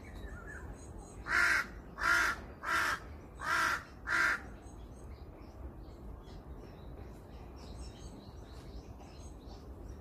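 A crow cawing five times in quick succession, starting about a second in, each caw short and harsh, a little under a second apart.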